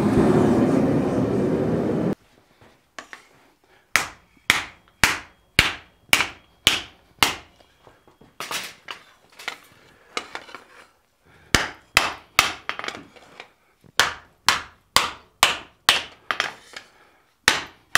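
A gas forge runs with a steady roar for the first two seconds, then cuts off. A steel hand hammer then strikes hot sheet steel on the anvil, about two sharp blows a second, with a couple of short pauses.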